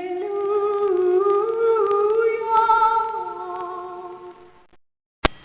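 Wordless female singing of long held notes, more than one voice moving slowly through a chord, fading out about four and a half seconds in. A single sharp click comes near the end.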